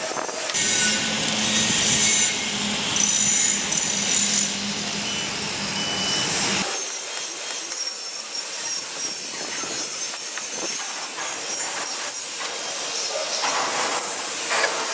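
Torque wrench ratcheting as bolts on a power hammer's bearing cover are tightened, over workshop noise. A steady low hum runs under the first several seconds.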